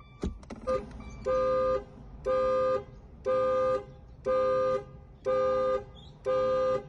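2016 Dodge Dart's horn honking in an even alarm pattern, one half-second honk about every second: the car's anti-theft alarm going off.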